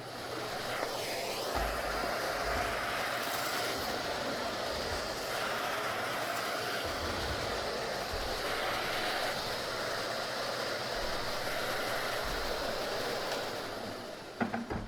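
Numatic James straight-suction tub vacuum running steadily, its motor and airflow making an even rushing noise as the floor tool sucks up the rest of the spilled test debris from a wood floor, with a few low rumbles as the tool is pushed. It dies away about a second before the end.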